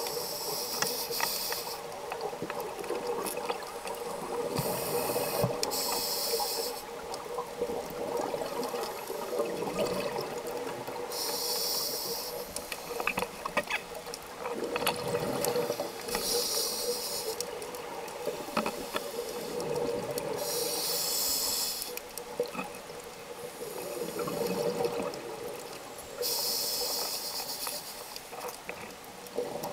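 Scuba regulator breathing heard underwater: a hissing inhalation every four to five seconds, alternating with bubbling, gurgling exhalations.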